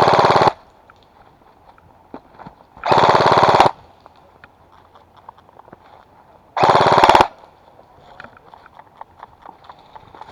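Airsoft gun firing three short full-auto bursts of rapid, evenly spaced shots, about three seconds apart. Fainter scattered pops and ticks sound between the bursts.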